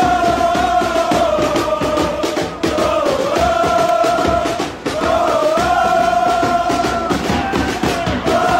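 Crowd of football supporters chanting a song together in long held phrases, each breaking off after two to three seconds.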